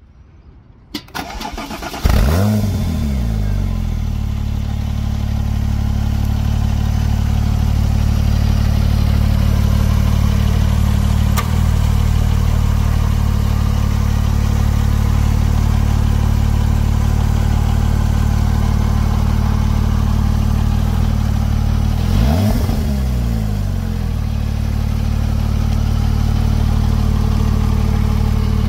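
2008 Porsche 911 Turbo's twin-turbo flat-six cold-starting: a couple of clicks, then it catches about two seconds in with a quick flare in revs and settles into a steady idle. Much later the revs rise and fall once, briefly.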